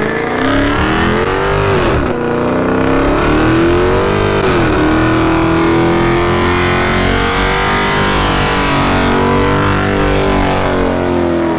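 A car doing a burnout, engine revved hard and held at high revs with the rear tyres spinning. The revs dip twice in the first few seconds, then hold steady and drop away at the very end.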